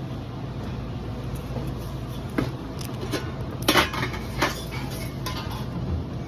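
Kitchen utensils and dishes clinking and knocking a few separate times, the loudest a little past halfway, over a steady low hum.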